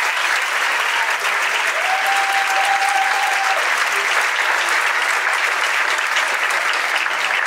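An audience applauding steadily. A faint held note sounds above the clapping for about a second and a half near the middle.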